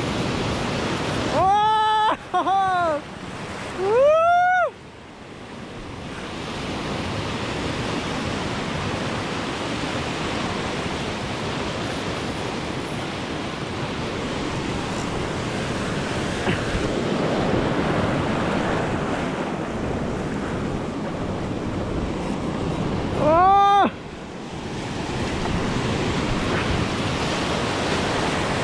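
Ocean surf washing and breaking over shoreline rocks, with wind on the microphone. Four short, high cries that rise and fall in pitch stand out above it, three close together near the start and one more about 23 seconds in.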